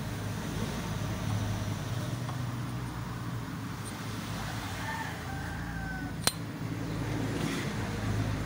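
A rooster crowing in the background, a call of about a second that falls slightly in pitch, over a steady low rumble. A single sharp click comes a little after the crow.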